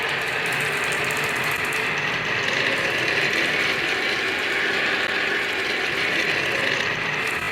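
Small toy vehicles rolling down a wooden zigzag slope toy, a continuous fast rattling clatter of wheels on wood.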